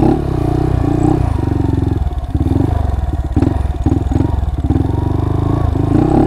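Honda Monkey 125's single-cylinder four-stroke engine idling close up, its note dipping and picking up again a few times.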